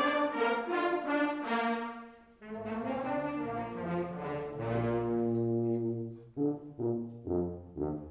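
Concert wind band playing, brass to the fore: held chords with a low bass line, a short break a couple of seconds in, then a run of short, detached chords near the end.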